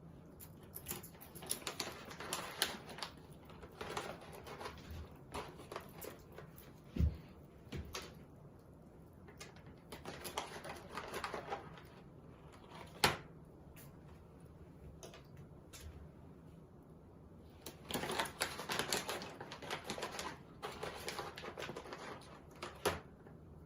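Pet hedgehog chewing food with quick crunching clicks, in three spells with short pauses between them. There are a couple of single sharper knocks.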